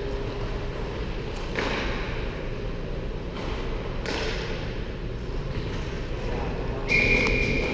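Indoor roller hockey rink ambience: a steady hum under distant play, with two sharp knocks from sticks or puck about a second and a half and four seconds in. A short, steady high tone sounds near the end.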